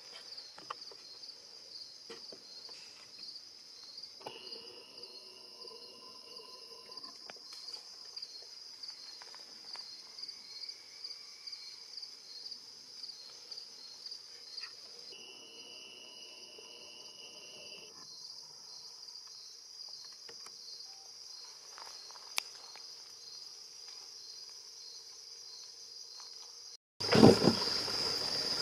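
Steady, pulsing chorus of insects in the woods, with a few faint snaps in the brush where a deer is crashing through a thicket. Near the end the sound cuts abruptly to a louder rustling with one sharp thump.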